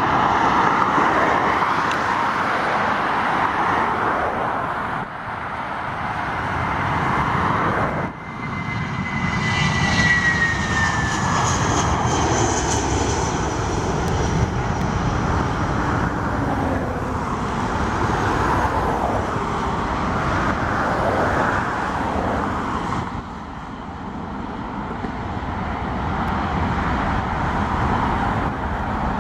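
Airbus A320-family airliner's twin jet engines at takeoff power: a loud, steady rush of engine noise. About nine seconds in, a high whine glides downward as the jet passes and climbs away.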